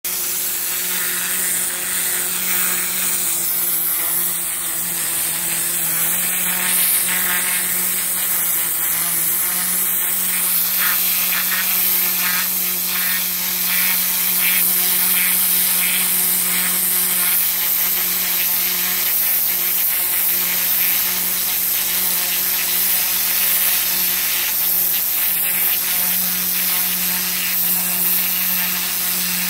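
Pressure washer's turbo lance blasting a high-pressure water jet onto moss-covered block paving: a loud, steady hiss of spray hitting the pavers, with a steady low hum underneath.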